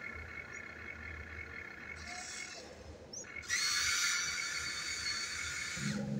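Small electric motors of a Huina radio-controlled excavator whining as the boom and arm move, pausing briefly past the middle and then starting up again louder.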